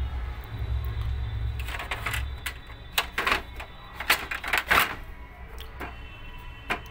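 The plastic output tray of a Xerox WorkCentre copier being pushed and snapped into place. It gives a handful of sharp clicks and knocks between about two and five seconds in, with a low rumble at the start.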